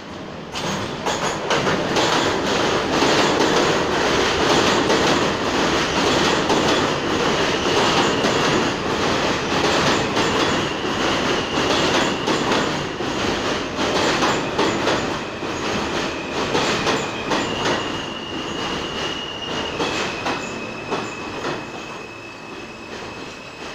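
R160A subway train pulling into the station: a loud rumble with wheels clattering over rail joints, then a high whine that steps up and down in pitch as the train brakes. It grows quieter toward the end as the train slows to a stop.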